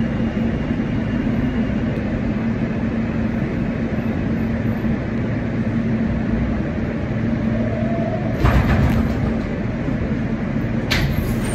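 R160 subway train braking into a station and coming to a stop, heard from inside the car: a steady rumble with a low hum, a short hiss about eight and a half seconds in as it halts, and a sharp hiss near the end.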